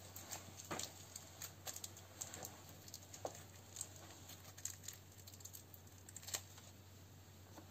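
Light, irregular clicks and taps of small airsoft gearbox parts being handled on a workbench, over a faint steady low hum.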